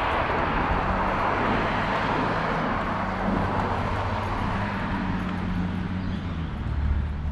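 Road traffic: the rush of a passing vehicle fades over the first few seconds, with a low steady engine hum beneath it.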